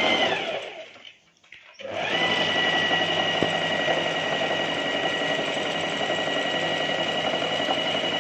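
Sewing machine stitching. About a second in it slows and stops, with its whine dropping away. It starts again a moment later and runs steadily, adding a line of stitching along the side of a fabric edge.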